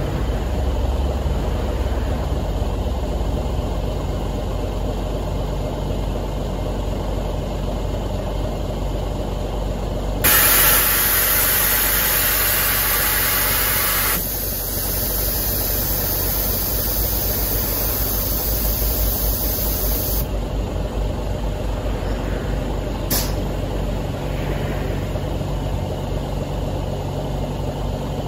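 Mitsubishi Fuso Aerostar bus idling. About ten seconds in, a loud hiss of air starts suddenly and lasts about four seconds, then a softer hiss runs about six seconds more and cuts off: the air suspension venting as the bus kneels. A single sharp click follows a few seconds later.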